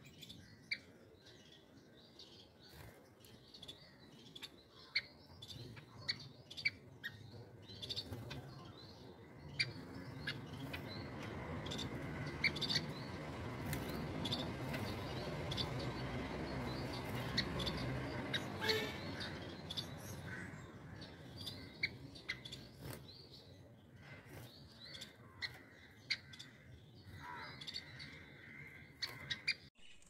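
Aviary of long-tailed finches calling: many short, sharp chirps scattered throughout. A broad rushing noise swells up through the middle and fades again.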